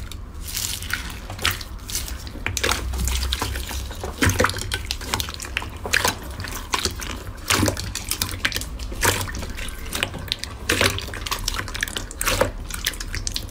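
Clear slime packed with white foam beads being squeezed and pressed by hand: wet squelching with many small irregular clicks and pops.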